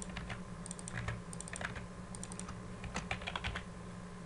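Computer keyboard typing in short, irregular flurries of keystrokes, over a steady low hum.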